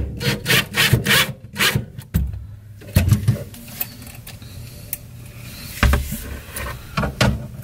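Cloth rubbing and scraping against the microphone in a quick run of strokes over the first two seconds, then a few scattered knocks and handling sounds.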